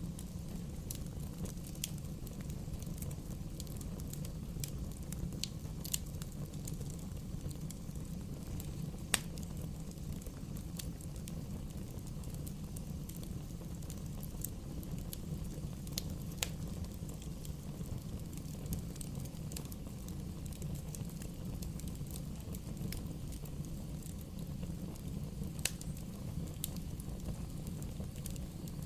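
Wood bonfire burning: a steady low rumble of the flames with scattered sharp crackles and pops from the burning wood, one louder pop about nine seconds in.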